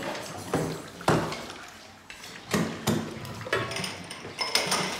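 Crockery and cutlery clattering as they are handled: an irregular series of knocks and clinks, some with a short ringing tail.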